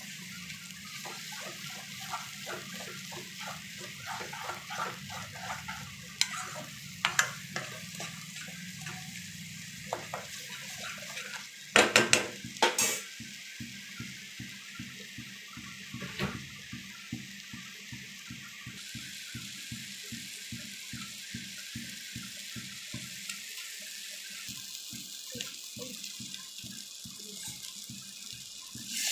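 Thick onion-tomato masala sizzling with a steady hiss in a nonstick kadai. A metal spatula stirs and scrapes through it in the first half, with a few sharp knocks about twelve seconds in.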